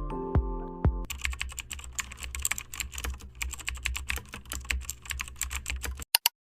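Fast, uneven clicking of typing on a computer keyboard for about five seconds, ending in two last clicks and then silence. A music track with a beat plays under the first second and stops.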